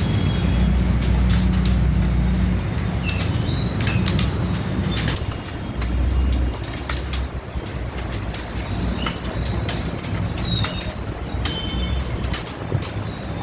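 Several computer keyboards being typed on at once: a dense, irregular clatter of key clicks over a low steady rumble.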